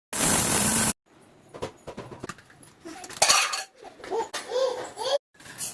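Kitchen clatter of utensils and cookware clinking, opening with a short loud rushing burst, with brief voice-like or animal-like calls about two-thirds of the way through.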